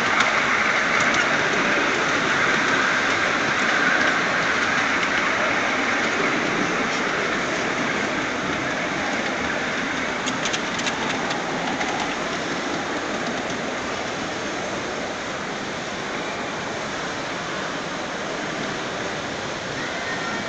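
5-inch gauge model freight train rolling past on its track: a steady hiss of wheels on rail that slowly fades, with a few light clicks about ten seconds in.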